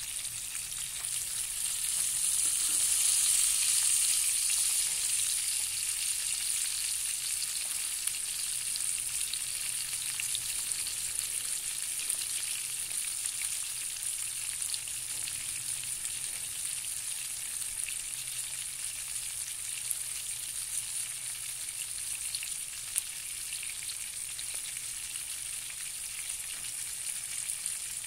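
A whole fish (cá kẽm) sizzling as it fries in shallow oil in a nonstick pan: a steady hiss with scattered small pops and crackles, swelling a little a few seconds in.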